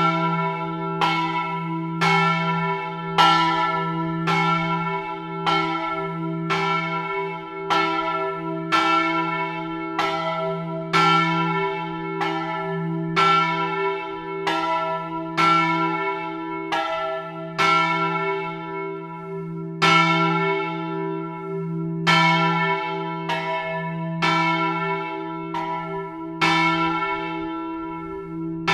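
A single church bell swinging, its clapper striking about once a second, each stroke ringing on into the next over a steady low hum note.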